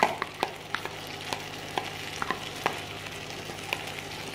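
Diced potatoes and mutton keema frying in a little oil in a non-stick pan: a steady sizzle, with scattered sharp clicks of a spoon against the pan and bowl, the loudest right at the start as the potatoes are tipped in.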